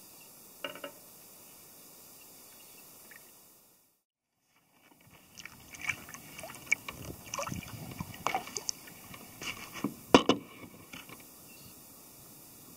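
Faint steady hiss at first. Then, after a short dropout, a string of irregular knocks, clicks and scrapes from a double-bladed paddle working a lightweight pack canoe, with water splashing and the paddle bumping the hull. The loudest knock comes about ten seconds in.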